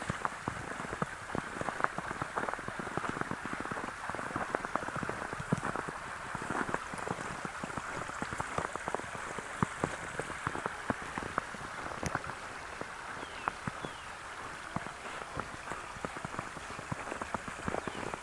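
Small brook running: a steady rush of water with many small, irregular splashes and plinks.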